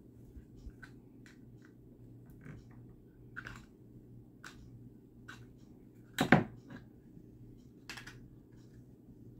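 Light, scattered clicks and ticks of a hex key turning the adjustment screws on a Cytac MegaFit holster, loosening it so a pistol will fit. A sharper double clack comes about six seconds in, and another click near the end.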